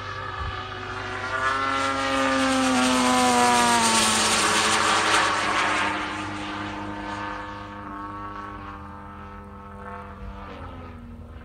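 Radio-control racer plane with a gas engine and propeller plus a JetCat 80 turbine flying past overhead. The engine's buzz grows louder and drops in pitch as it passes, with a rushing hiss at its loudest about four to five seconds in, then fades away.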